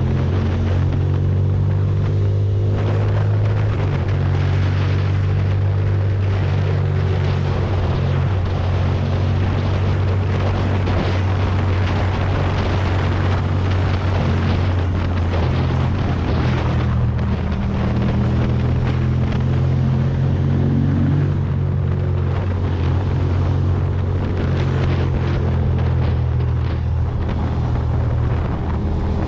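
Ducati Monster's V-twin engine running at road speed, with its pitch rising and falling in steps as the rider works the throttle and gears, under heavy wind noise on the helmet microphone.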